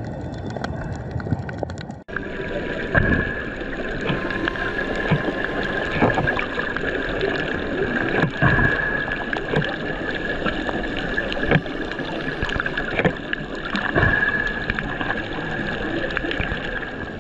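Underwater sound picked up by a submerged camera on a coral reef: a steady hiss and crackle with a constant high whine, and several dull thumps of water against the housing. The sound breaks off abruptly about two seconds in and resumes.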